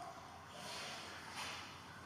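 Faint rustling and scraping of plastic contact-paper resist being picked and peeled off sandblasted flash glass, with a sharp click at the start.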